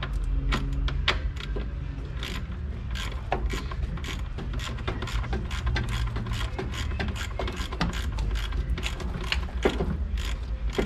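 Socket ratchet clicking as a 10 mm bolt on the radiator cooling fan assembly is turned out, the clicks coming in quick irregular runs over a steady low hum.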